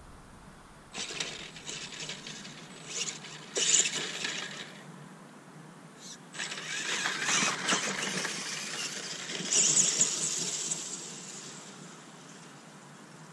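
Tamiya Super Clod Buster RC monster truck's twin Tamiya Super Sport TZ electric motors and gearboxes whirring under throttle as it drives over grass. There are two runs of about four seconds each, and the second fades as the truck moves away.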